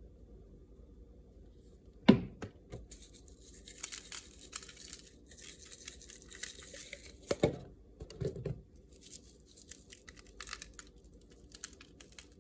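Kitchen handling noise while seasoning raw chicken: a sharp knock about two seconds in, then irregular crinkly rustling and shaking with a couple of soft thumps.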